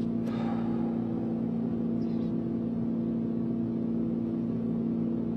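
A sports car's engine running at a steady speed, giving an even, unchanging hum.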